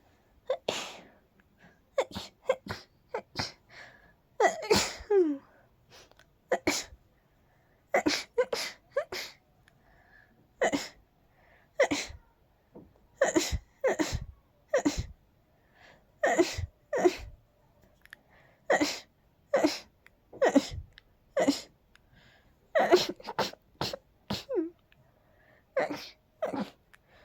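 A person sneezing over and over in a dust-allergy fit, a long run of short, sharp sneezes about one a second, some in quick pairs. A few sneezes end on a high note that slides downward, about five seconds in and again near the end.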